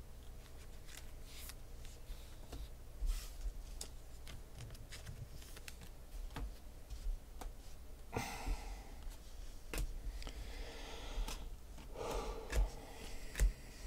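Football trading cards being handled and slid against one another: scattered light clicks and taps, with two brief papery swishes, about eight and twelve seconds in.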